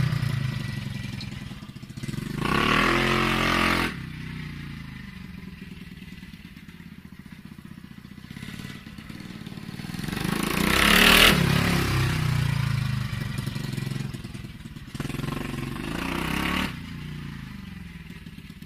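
Stomp pit bike's small single-cylinder four-stroke engine being ridden in short bursts of throttle. Twice the revs rise and then cut off sharply, dropping to a low running note in between. The engine grows loudest about eleven seconds in and fades away near the end.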